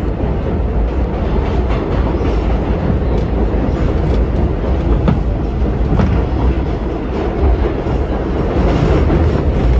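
Vintage subway train running on the tracks: a steady, loud rumble of wheels on rail with a couple of sharper clicks around the middle.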